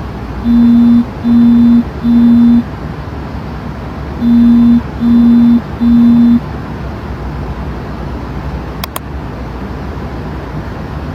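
Two sets of three low, evenly spaced electronic beeps, each about half a second long, over a steady low hum and hiss; two short clicks follow later.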